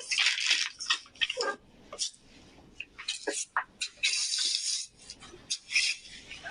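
Plastic packaging being handled: crinkling and rustling in several spells, loudest near the start and again about four seconds in, with a few light clicks and knocks.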